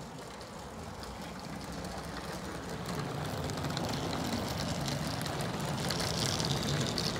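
16mm-scale garden-railway train running along the track, a steady rumble and rattle of wheels on the rails that grows gradually louder as it draws near.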